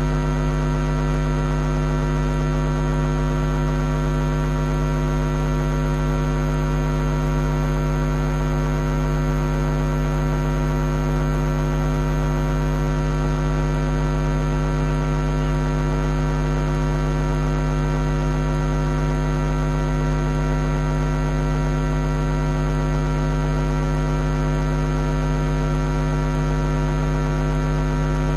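Steady electrical mains hum with many overtones, unchanging throughout. No sound from the lions can be heard above it.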